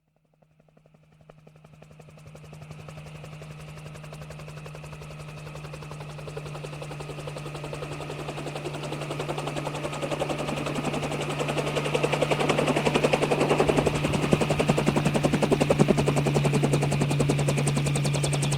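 Helicopter approaching: rapid rotor-blade chop with a steady low hum, fading in from silence and growing steadily louder until it is close and loud from about twelve seconds in.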